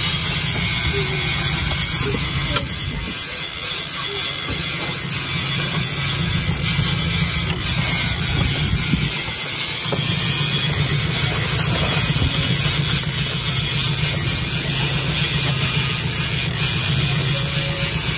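Steady wind noise buffeting the microphone: a rushing hiss over a low rumble, the rumble dropping away briefly about three seconds in and again near ten seconds.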